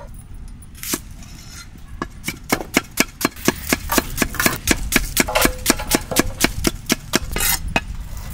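Large knife slicing an onion on a wooden chopping block: quick, even chops about four a second, starting about two seconds in after a single knock near one second.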